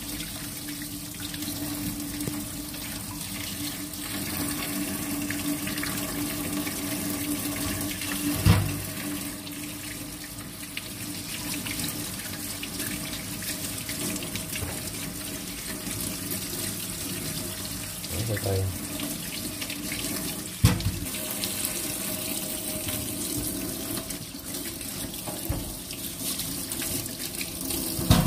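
Kitchen tap running into a stainless-steel sink as potatoes and sweet potatoes are scrubbed clean under the stream, the water splashing over them and the hands. A few sharp knocks, the loudest about eight seconds in and again about twenty seconds in.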